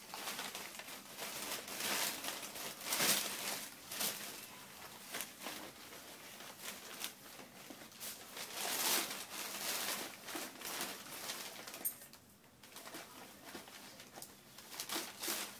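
Dog rooting through a pile of wrapping paper, the paper rustling and crinkling in irregular bursts, with a short lull about twelve seconds in.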